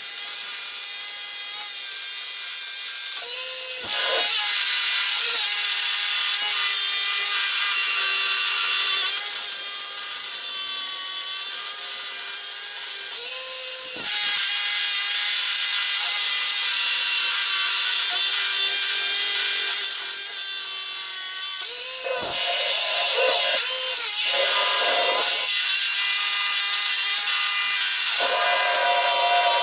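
Electric drill boring holes into concrete, running steadily. It stops and restarts three times, about four, fourteen and twenty-two seconds in, and runs louder after each restart.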